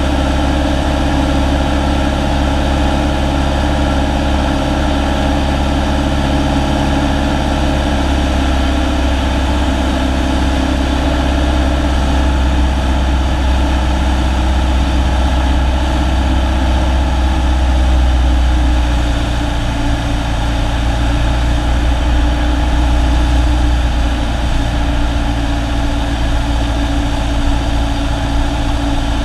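Single-engine Cessna's piston engine and propeller droning steadily on approach to land. The engine note changes about two-thirds of the way in.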